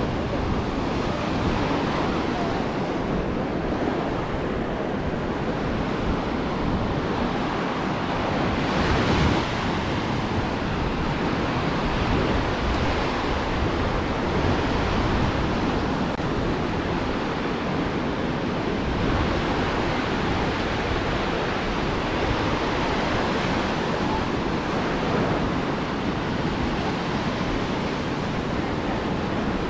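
Ocean surf washing onto a beach, a steady rushing noise with one louder wash about nine seconds in, and wind rumbling on the microphone.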